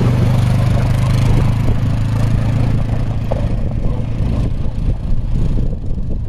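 Polaris Sportsman 570 ATV's single-cylinder engine running steadily close by, then pulling away and growing fainter over the last few seconds.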